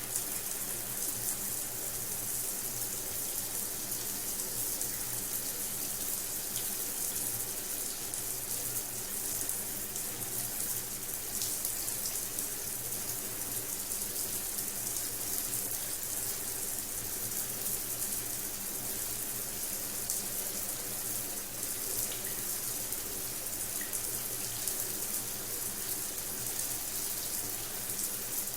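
Rain shower head spraying water in a steady, even hiss, with a faint low hum underneath.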